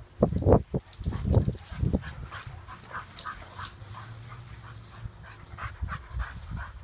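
Dogs playing, with a few loud low thumps in the first two seconds, then quick, rhythmic panting at about three breaths a second.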